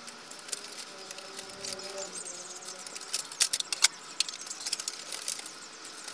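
Light metallic clicks and scrapes of a steel locking band being clipped around a stainless twin-wall flue pipe, with a few sharper clicks about three and a half seconds in.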